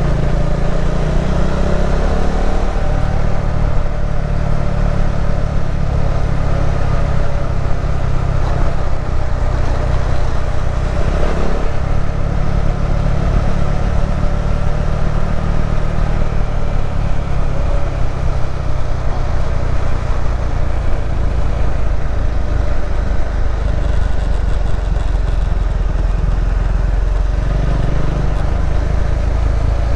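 KTM 390 Adventure's single-cylinder engine running while the bike is ridden, its note shifting with the throttle, most clearly in the first few seconds and again about eleven seconds in.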